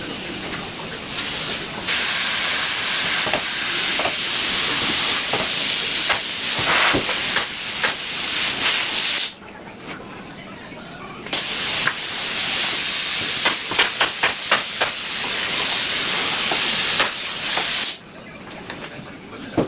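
A handheld cordless power tool running with a loud, steady hissing rush. It cuts off about halfway through, starts again about two seconds later and stops shortly before the end, with a few sharp clicks along the way.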